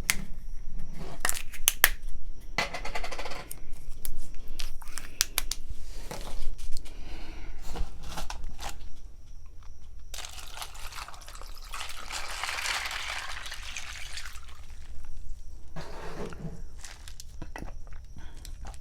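Clicks, knocks and crinkling from handling a drink, then a few seconds of rushing liquid as iced tea is poured.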